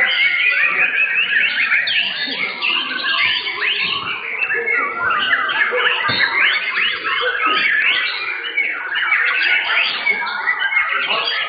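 White-rumped shama (murai batu) song: a dense, continuous stream of fast whistled notes, swoops and chattering runs that rise and fall without a break.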